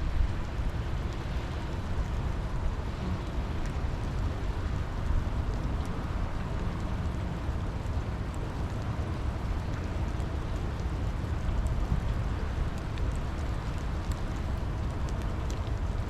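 Steady rain with scattered faint drop ticks over a low, constant rumble.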